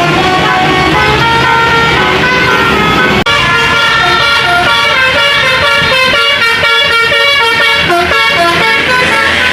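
A tour bus's basuri musical air horn playing a tune of stepped notes. It breaks off briefly about three seconds in, then plays a quicker run of short notes.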